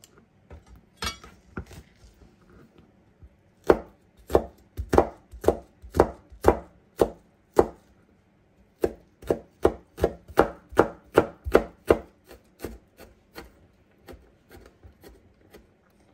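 Chef's knife chopping garlic cloves on a plastic cutting board: a few light taps, then a steady run of sharp knocks about two a second with a short pause midway, tailing off into softer taps near the end.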